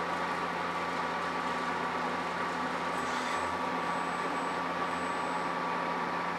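Machine tool running steadily while a drill bit bores through a thick acrylic block, an even mechanical hum. About three seconds in there is a brief scrape as the bit is drawn out of the hole, and a thin high tone comes and goes after it.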